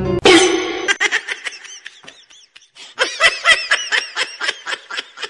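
A person laughing in quick, high-pitched bursts, in two runs with a short pause between.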